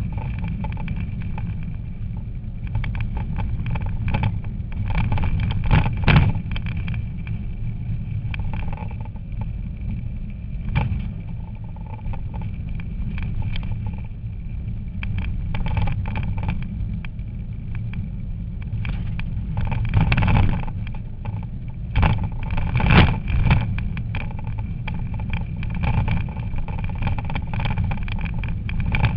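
Rally car's engine running hard at stage speed, heard from inside the cabin, with a steady high whine and several sharp knocks and thumps from the car hitting bumps and stones on the stage, the loudest about six seconds in and twice more near the end.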